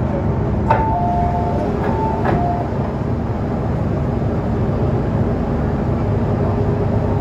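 Metro-Cammell M-Train saloon doors and the platform screen doors opening at a station, with a two-note falling chime sounding twice near the start. A steady low rumble from the standing train runs underneath.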